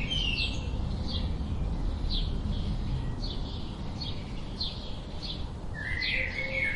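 Wild birds chirping: short high chirps repeat about every half second to a second, and a lower warbling phrase comes near the end, over a steady low rumble.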